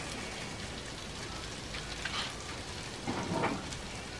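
Food frying on a hot grill: a steady sizzling hiss, with two short sharper sounds about two and three seconds in.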